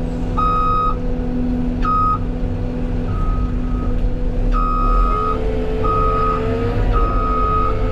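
A heavy machine's backup alarm beeping about once a second, the beeps uneven in length, over the steady running of a diesel engine whose pitch rises slightly about five seconds in.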